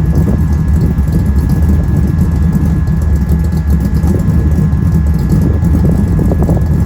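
Engine idling steadily, close and loud, with a faint steady high whine above the low running note.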